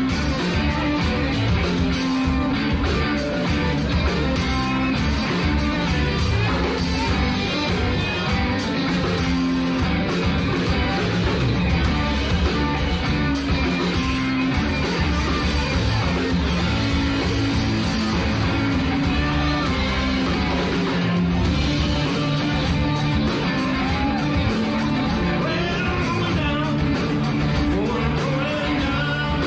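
Live rock band playing a blues-rock number on electric guitars, electric bass and a drum kit through stage amplifiers, loud and continuous with a driving drum beat.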